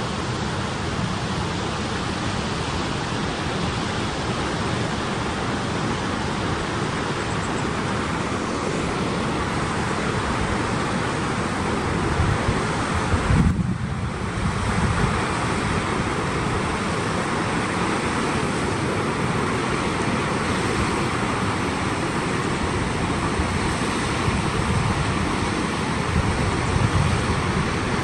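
Wind gusting on the microphone over a steady rushing noise of creek water running through rock cascades, with a louder stretch of buffeting about twelve to fifteen seconds in.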